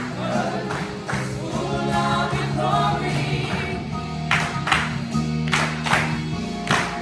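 A gospel choir singing with musical accompaniment, sustained chords underneath. In the second half come several sharp percussive hits.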